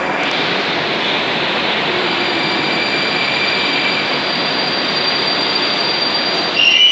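Moscow Metro 81-765 "Moskva" train pulling in past the platform and slowing, a steady rush of wheel and running noise with a thin high whine. Near the end a louder high squeal starts as it brakes toward a stop.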